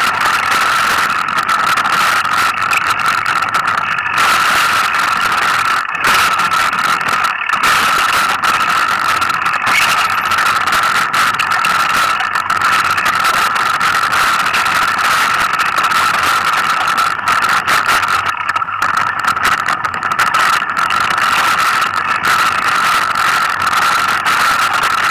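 Mountain bike riding down a dirt forest trail: a continuous rush of tyre and wind noise with a steady high whine running through it, which drops out briefly a few times.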